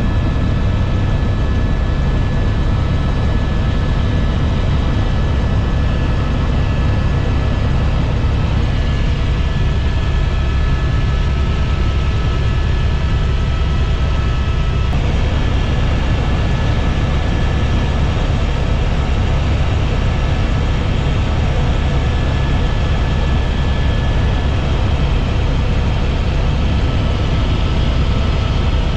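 Helicopter cabin noise in flight: a loud, steady low drone of rotor and engine, with a faint steady high whine over it.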